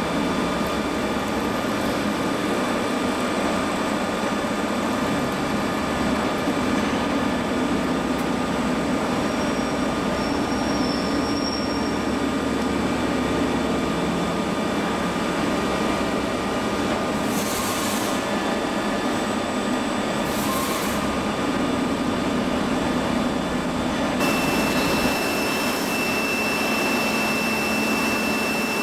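Fermat WFT 13 CNC bed milling machine running with its micro indexing milling head, tapping an M16 thread: a steady mechanical drone with several thin, constant whine tones, broken by two short hisses about two thirds of the way through. About 24 s in the sound shifts to milling with coolant mist spraying, and a new high steady whine comes in.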